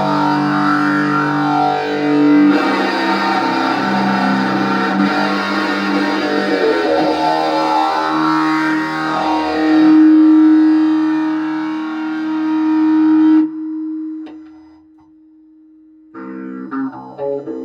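Heavily distorted electric guitar through an amp playing a slow doom-metal riff of sustained chords. A long held note rings out and is cut off about 13 seconds in, then after a short pause quieter single picked notes start near the end.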